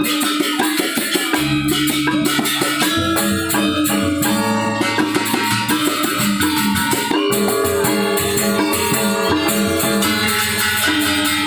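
Balinese gamelan gong kebyar ensemble playing a fast instrumental piece: bronze metallophones ringing in shifting melodic patterns over drums and dense, rapid cymbal clashing.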